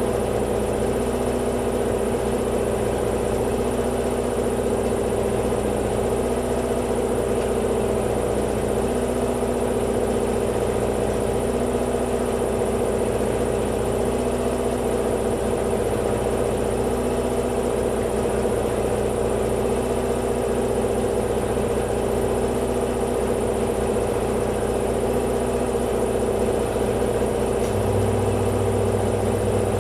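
A motor running steadily, a constant mechanical hum with a faint tone that comes and goes every couple of seconds; a deeper hum joins near the end.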